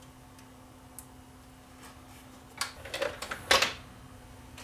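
A quick run of plastic-and-metal clicks and knocks from handling the CD recorder's chassis as its bottom cover goes back on, starting about two and a half seconds in with the loudest knock near the end of the run. Before it, only a faint steady hum and one small click.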